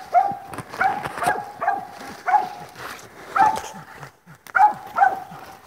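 Coon hunting dog barking treed: short, repeated barks, about one or two a second, at a raccoon it has chased up a tree.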